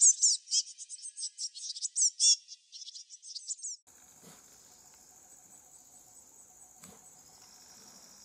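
A dense run of rapid, high-pitched chirps and trills that cuts off abruptly about four seconds in, followed by a steady, high-pitched drone of insects in the wild.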